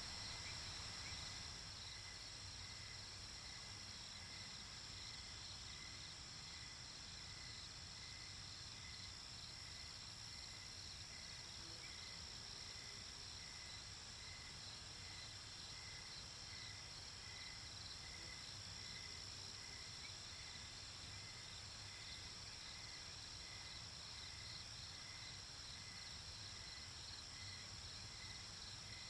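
Crickets and other night insects chirping in a steady, even chorus, with a soft chirp repeating about once a second over a continuous high drone. A faint low hum of background noise runs underneath.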